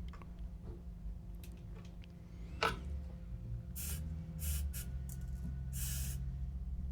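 Small hand-tool work on wire leads: a sharp click about two and a half seconds in, then three short scraping hisses, over a steady low hum.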